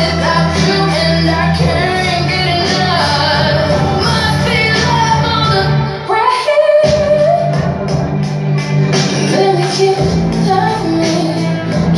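Loud music playing, a song with a woman singing over a steady bass line. The bass drops out briefly about halfway through.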